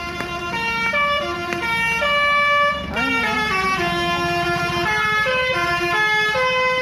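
Indonesian bus 'telolet' basuri horn, a multi-tone musical air horn, playing a tune of held notes that step up and down, with a swooping pitch bend about three seconds in. The bus engine runs underneath.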